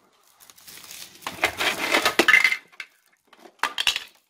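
Hard plastic toy dollhouse pieces clattering and clicking against each other and the box as the playset is handled, in a longer flurry followed by a short burst of clicks near the end.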